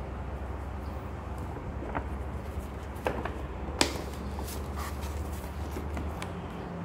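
Stiff paper shopping bag being handled and opened: a few sharp paper crinkles and rustles, over a low steady hum that stops near the end.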